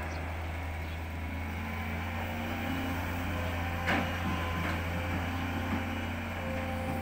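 Long-reach crawler excavator running steadily at work, a diesel drone with a thin hydraulic whine over it. A short sharp knock about four seconds in, and a smaller one near the end.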